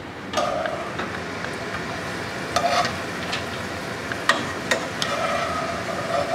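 Tortilla pieces frying in hot oil in a metal saucepan: a steady sizzle, with several sharp clicks of tongs knocking against the pan.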